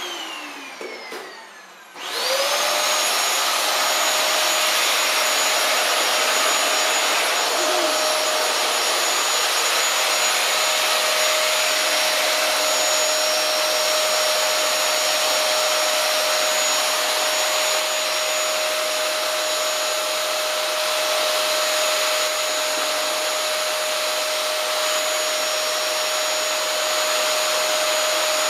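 Dyson canister vacuum cleaner: for the first two seconds its motor winds down with a falling whine. It is then switched back on, spins up quickly, and runs steadily with a high motor whine over rushing suction air.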